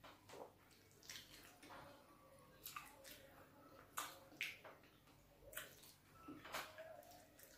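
Close-up wet mouth sounds of eating fufu with bitter leaf soup by hand: chewing, with about eight short wet smacks and clicks at irregular intervals.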